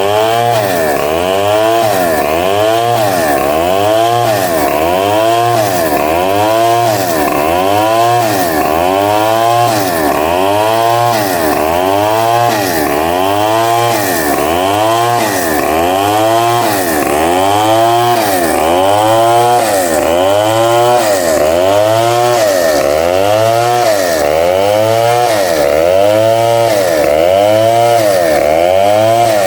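Vertical bandsaw running as it cuts through timber. It is a loud, continuous machine sound whose pitch swells and falls in an even cycle, a little under once a second.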